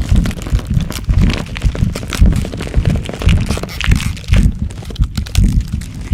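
Transformation growth sound effect: deep thumps repeating about twice a second under dense crackling and crunching, like stretching flesh and cracking bone.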